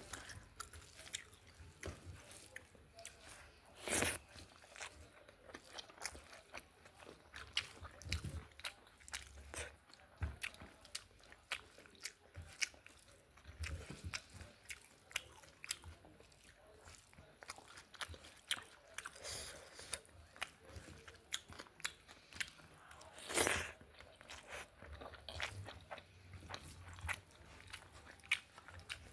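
Close-miked mouth sounds of someone eating rice with vegetables and soya chunks: steady chewing with many small wet clicks, and two louder bites, one about four seconds in and one near the end.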